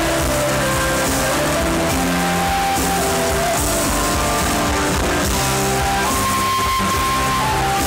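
Live band playing an instrumental passage of a slow ballad: strummed acoustic guitars, keyboard and drums under a held melody line, with no singing.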